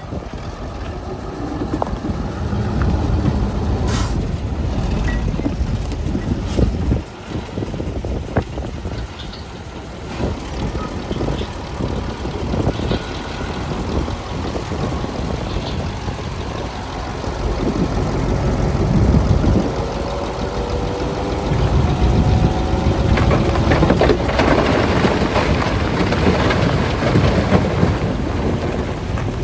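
Heavy diesel construction machinery running under load, a deep continuous rumble with a few sharp knocks in the first ten seconds. In the last third an engine note rises and the machinery gets louder.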